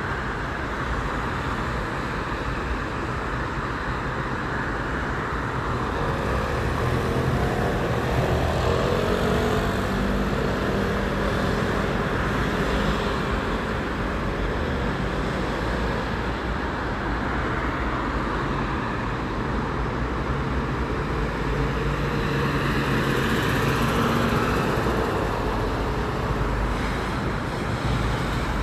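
Steady city road traffic: cars and other vehicles running on a multi-lane road, with a continuous tyre-and-engine hum that swells a little twice, from about 7 to 12 seconds in and again around 22 to 25 seconds.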